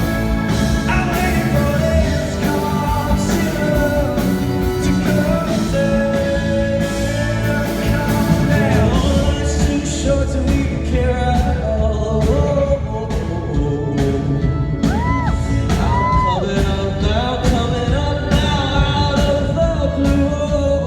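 A male vocalist singing a rock ballad live over instrumental accompaniment, holding long wavering notes.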